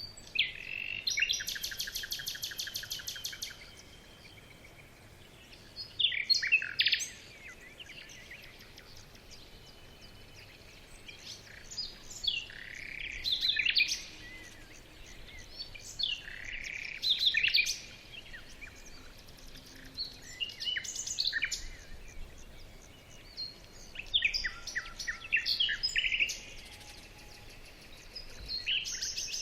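Birds calling in separate bursts every few seconds: a fast rattling trill near the start, then shorter sweeping high calls.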